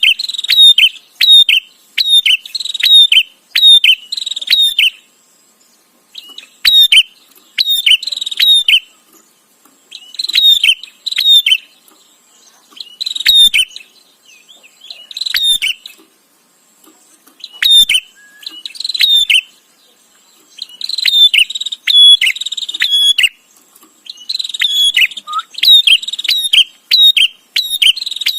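Prinia (prenjak) calling: runs of sharp, rapidly repeated chirps, two or three a second, each run lasting a second to a few seconds with short pauses between.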